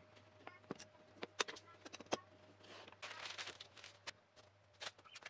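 Scattered light knocks and clicks of plywood pieces and clamps being handled on a work table, with a short rustle of newspaper about three seconds in.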